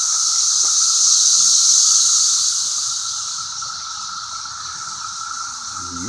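Chorus of cicadas: a steady, high-pitched shrill with a lower steady drone beneath it. It swells over the first couple of seconds, then eases off a little.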